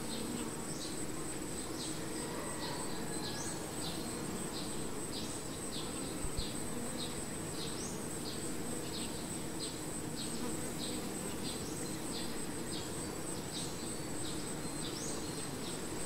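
Steady low hum of a cluster of honey bees buzzing on a branch. Over it run short, high insect chirps, about two or three a second, and a thin, steady high whine.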